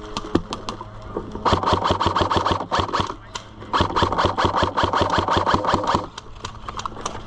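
Electric airsoft gun firing on full auto in two long bursts, a rapid even rattle of shots over the whine of its motor and gearbox, with scattered single shots around them.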